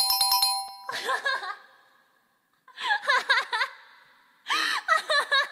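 A bell-like chime sound effect, a quick run of ringing ding tones, ends about a second in. Three short bursts of high-pitched giggling follow.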